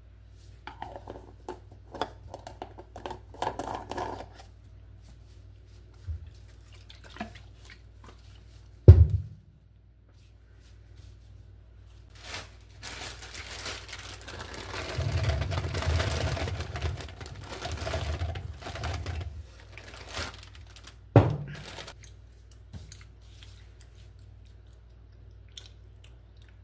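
Handling noises over a steady low hum: scattered clicks and rustling, a longer stretch of rustling in the middle, and two sharp thumps, about nine seconds in and again near twenty-one seconds.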